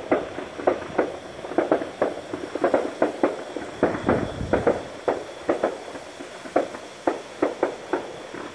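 Firecrackers popping in an irregular string, two or three sharp bangs a second.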